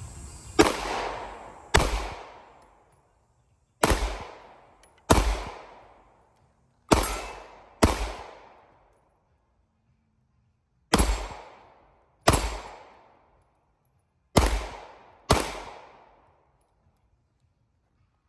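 Ten pistol shots fired in five pairs, the two shots of each pair about a second apart, with a few seconds between pairs, each shot ringing out briefly.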